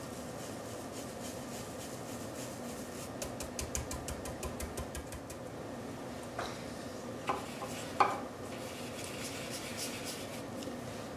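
Stencil brush pouncing paint through a stencil onto wood: a quick run of light taps for about two seconds. Then a few sharper knocks, the loudest about eight seconds in, as the brush is worked in the small plastic paint tub.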